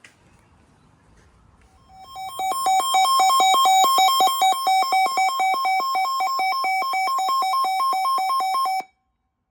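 Weather alert radio sounding its electronic alarm: rapid square-toned beeping that alternates between two pitches, about seven beeps a second. It starts about two seconds in and cuts off abruptly near the end, signalling a new warning for the area.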